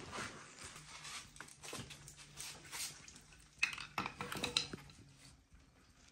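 Scattered light metallic clinks and knocks from gloved hands working on a VR6 engine block mounted on an engine stand, busiest about four seconds in, over a faint steady hum.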